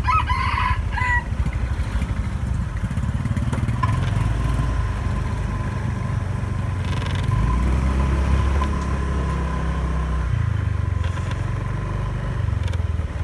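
Scooter engine running under way with road and wind noise, pulling a little harder for a few seconds in the middle.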